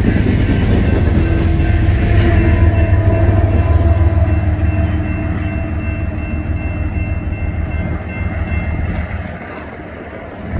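BNSF freight train cars rolling past close by, a loud steady low rumble with wheel clatter. A long steady tone sounds over it for several seconds through the middle. The rumble falls away near the end.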